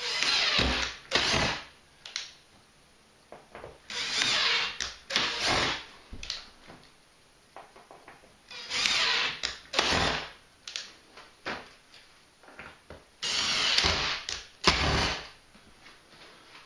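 Cordless drill driving a small sheet-metal screw through a corrugated steel panel to start screw holes, four times. Each hole is about a second of drilling followed by a shorter second burst, with a few seconds' pause between holes.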